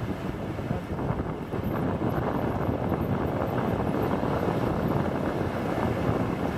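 Steady wind noise buffeting the microphone over waves breaking on the shore.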